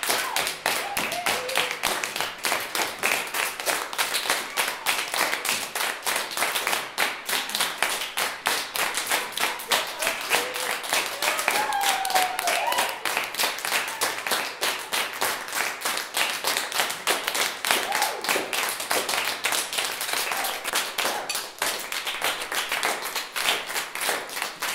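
Many hands clapping continuously, a dense patter of claps, with a few faint voices calling out now and then.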